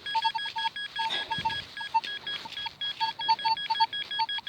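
Metal detector's audio giving a rapid run of short, broken beeps, a low tone alternating with a higher one, as it sweeps over a target in freshly dug soil.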